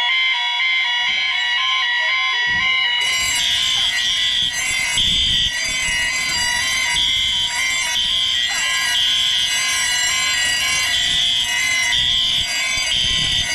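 Many fire alarm sounders going off at once: a dense mix of steady and pulsing alarm tones, one of them pulsing on and off about once a second. About three seconds in, more alarms join with higher tones and the din thickens.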